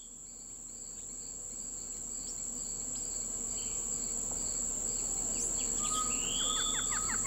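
Forest-edge ambience fading in: a steady, high insect drone with a faint repeating pulse. Bird calls join about six seconds in, first a rising whistle and then a fast run of short repeated notes.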